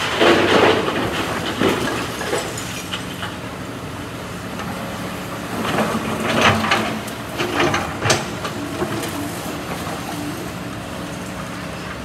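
Hitachi excavator's diesel engine running steadily while concrete rubble crashes and rattles into the steel bed of a dump truck in the first second or two, then the bucket scrapes and scoops through the rubble pile with clattering and a sharp knock midway.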